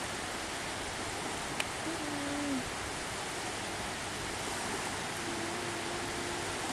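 Steady rushing noise of surf washing onto a sandy beach.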